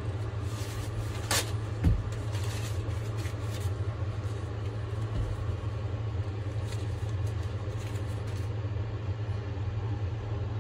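A steady low mechanical hum, with a soft thump about two seconds in and brief rustles, some of them from paper towels being handled.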